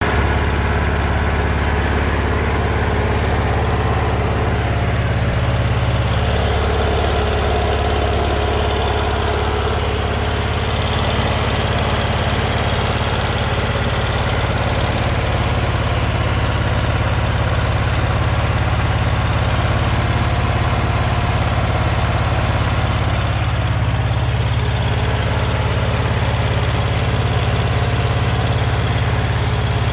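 Generac GP15000E portable generator's two-cylinder gasoline engine running steadily at constant speed, on fresh ethanol-free fuel after stale fuel had kept it from starting.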